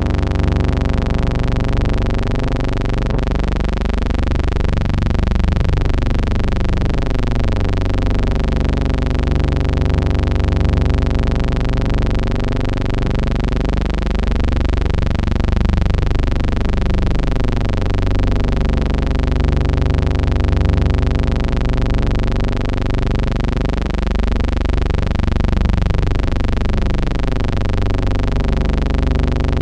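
A steady, loud droning hum made of many even tones, with a slow sweeping, phasing swirl that comes round about every ten seconds.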